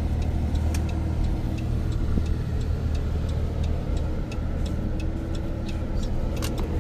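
Steady engine and road rumble inside a moving passenger van's cabin, with an indicator clicking evenly about three times a second and a couple of louder clicks near the end.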